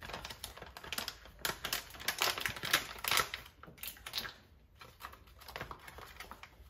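Quick irregular clicks and light clattering from handling kitchen items while measuring out agar-agar, busiest in the first three seconds or so and thinning out after about four and a half seconds.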